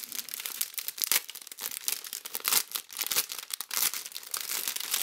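Clear plastic bag crinkling and crackling in irregular bursts as fingers work at its flap to open it.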